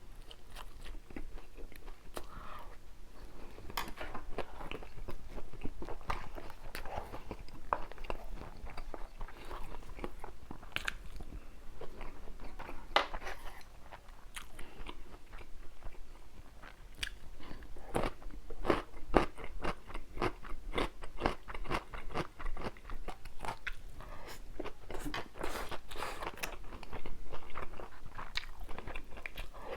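A person eating a Korean home meal, chewing and biting with many sharp, irregular mouth and food clicks.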